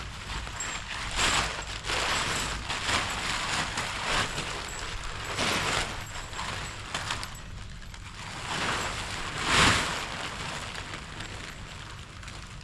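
Rustling and rattling as a tent and its parts are handled and unpacked: a string of irregular noisy swishes and clatters, loudest about a second in and again near the end.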